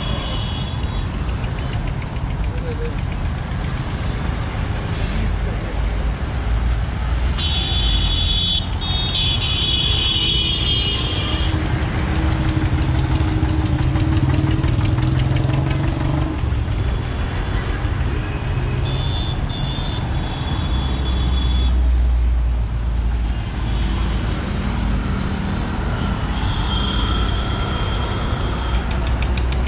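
Busy road traffic passing close by, with engines running and a steady rumble. Vehicle horns honk several times, the longest honks about eight seconds in, with shorter ones later.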